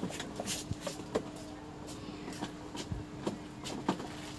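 Light handling noise at a repair bench: scattered small clicks, taps and rustles, about a dozen in four seconds, over a faint steady hum.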